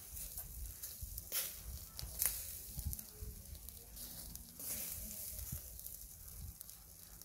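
Small squid sizzling in a wire grilling basket over a charcoal fire: a steady hiss broken by a few sharp crackles.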